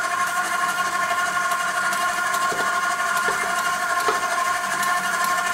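KitchenAid stand mixer running steadily with its whisk attachment, a constant motor whine, beating eggs and oil into the dry cake ingredients.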